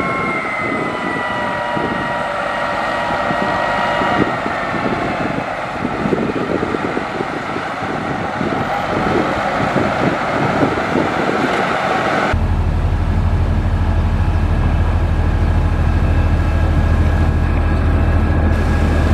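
Heavy diesel construction machinery, such as a motor grader, working on gravel. For the first part its engine runs with high whining tones over a rough clatter. About twelve seconds in the sound changes abruptly to a deep, steady engine drone.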